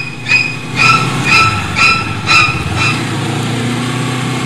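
Honda CBR250RR's parallel-twin engine running at low road speed. Over it come about six short, high electronic beeps, two a second, that stop about three seconds in.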